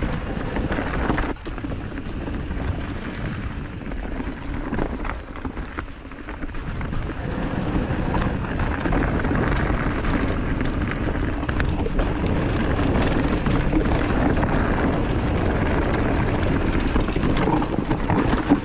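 Mountain bike rolling fast down a rocky trail: wind rushing over the microphone and tyres rumbling over rock and roots, with scattered knocks and rattles from the bike. The rush grows louder and steadier about halfway through.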